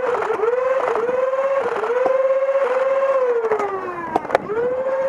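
An engine revving repeatedly: its pitch climbs in short steps, then slides down for about a second. Two sharp snaps come about four seconds in.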